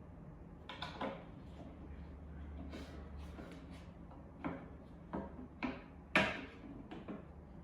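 Knocks and clacks of bed-platform boards and rail parts being handled and fitted together, about seven short strikes with the loudest near the end, over a faint steady low hum.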